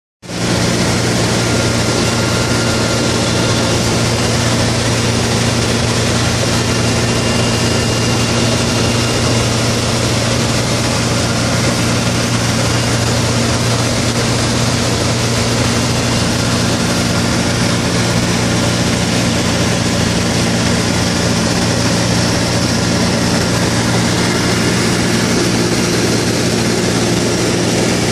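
Light high-wing aircraft's piston engine and propeller running steadily in flight, heard from inside the cockpit as a constant low drone over rushing noise.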